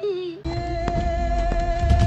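Dramatic music sting: a held tone over a deep bass swell, struck by sharp percussive hits. It starts about half a second in and grows louder near the end.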